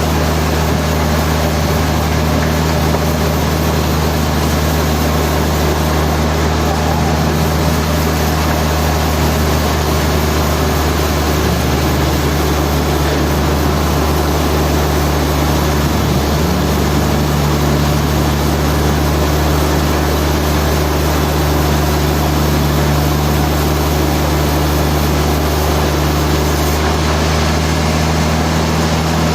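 Heavy sawmill machinery running steadily: a loud, even motor hum. Its pitch shifts slightly about twelve seconds in and again a few seconds later.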